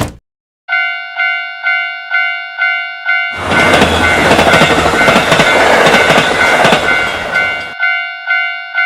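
Japanese railroad crossing warning bell dinging about twice a second. From about three seconds in, a train passes loudly for about four seconds and drowns the bell out, and then the bell dings on alone.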